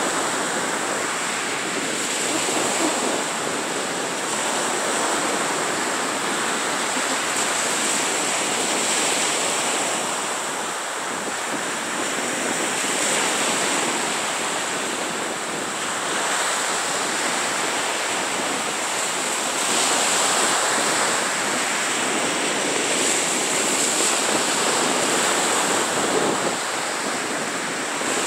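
Small Gulf of Mexico waves breaking and washing up a sandy beach: a continuous surf wash that swells every few seconds as each wave comes in.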